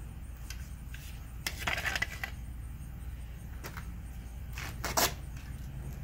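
E6013 stick-welding rod struck and scratched against the steel step, trying to start an arc from three 12-volt batteries in series: short sputtering bursts about one and a half seconds in and again near five seconds, the arc not holding. The welder later puts the poor start down to a bad connection through corroded jumper-cable clamps.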